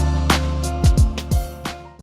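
Background music with a beat: kick drums and hi-hats over a sustained bass tone, fading out at the end.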